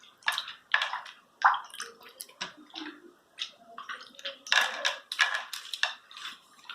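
Watery, deactivated jiggly slime splashing and sloshing in a run of irregular wet splashes, the slime having gone runny and nearly as thin as water.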